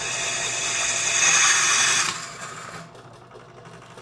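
Harbor Freight 60238 8-inch bench drill press drilling through 1/8-inch aluminum sheet without cutting fluid: a rising, high-pitched cutting noise over the steady motor hum, which stops suddenly about two seconds in as the bit breaks through, the motor running on. The bit goes right through without chattering.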